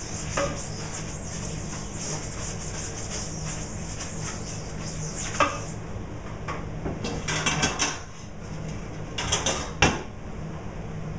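A stiff scrubbing brush worked back and forth over a screen-printing mesh in quick strokes, about two a second, to clear a dried-ink haze. The scrubbing stops about six seconds in and gives way to knocks and clatters as the brush goes into a plastic bucket and the screen is handled, over a steady low hum.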